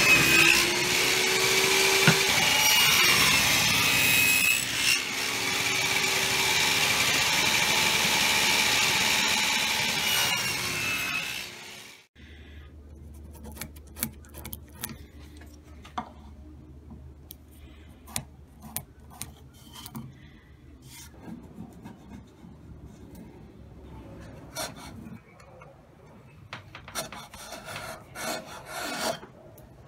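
A small table saw cuts a pine board, the motor whining under load as the wood is fed through; the sound stops abruptly about twelve seconds in. After that come quieter hand-tool sounds: light clicks and scraping as a marking gauge scores the pine and a chisel pares it, busier near the end.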